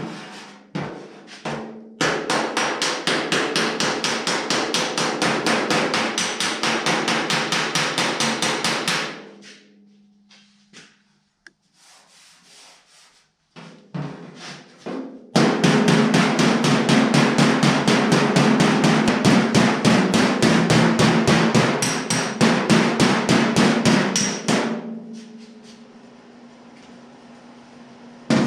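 Power hammer working a sheet-steel panel: two long runs of rapid, even blows, about eight or nine a second, over the steady hum of its motor, with a few single knocks between runs.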